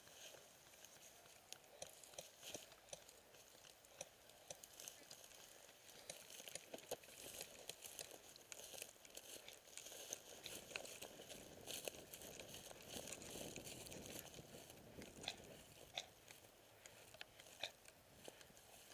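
Faint crunching and rustling with many scattered sharp clicks, a little louder for a few seconds in the middle.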